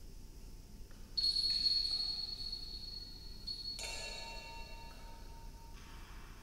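A pair of small round metal bells struck from below by a small metal slug tossed up from a wired device. They ring out with a bright, high tone about a second in and again, more fully, near four seconds, each ring fading slowly.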